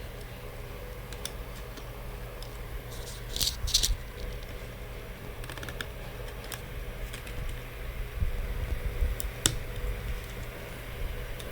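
Small clicks, taps and brief scratchy rustles of hands and tools working on an opened laptop, with a louder cluster of rustles about three and a half seconds in and a sharp click near the end, over a steady low hum.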